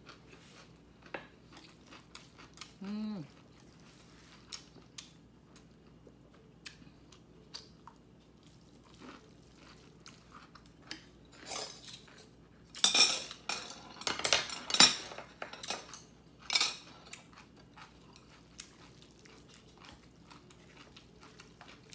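Chopsticks, spoon and dishes being handled on a table: scattered light clicks and taps, then a run of louder clinks and clatters about halfway through, with one more a little after.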